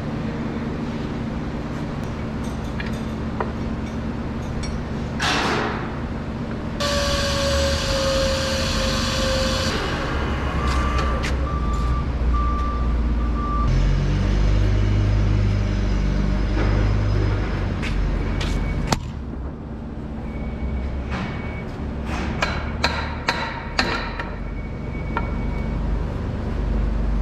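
Forklift repair-shop noise: a steady machine hum, with a few seconds of hissing and a falling tone, a short run of beeps, a heavier low rumble, and a cluster of sharp metal knocks and clanks near the end.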